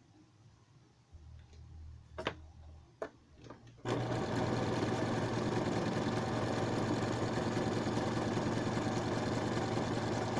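A few light clicks, then about four seconds in an electric sewing machine starts up and runs steadily at speed, its needle going up and down rapidly as it stitches a zigzag test row on paper.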